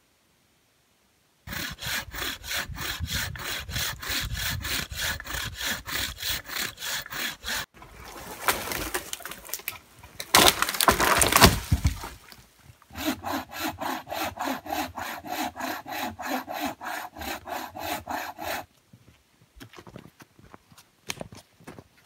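Hand saw cutting through a log with fast, even back-and-forth strokes. A rougher, louder stretch comes about midway, then a second run of strokes with a lower tone. A few crunching footsteps in snow come near the end.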